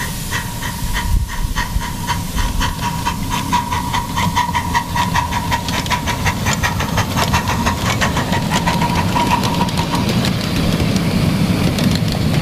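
A 7½-inch gauge live steam locomotive working past, its exhaust beating about four times a second over a hiss of steam. A steady high tone runs with it and stops about ten seconds in.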